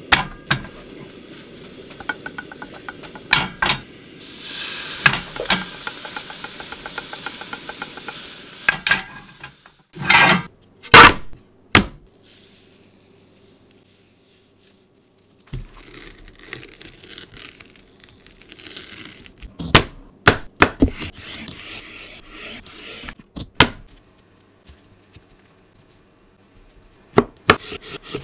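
Kitchen preparation sounds. Chikuwa (fish paste tubes) sizzle and crackle in a frying pan for about five seconds, followed by a few loud knocks. After a quiet spell comes rubbing and rustling of a plastic-wrapped cucumber on a wooden board, and near the end a kitchen knife taps on the cutting board as it slices the browned chikuwa.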